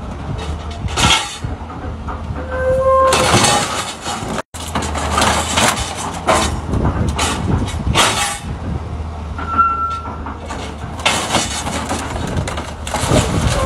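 Scrap-handling excavator's diesel engine running steadily while its grapple crushes and rips a wrecked truck cab, with repeated crunching and scraping of sheet metal. Short metal squeals come about two and a half seconds in and again near ten seconds.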